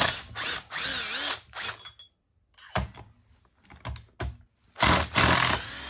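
Cordless power driver spinning out the screws holding the chainsaw's cylinder down, its motor pitch rising and falling. It runs for about two seconds at the start, gives a couple of short blips, then runs again near the end.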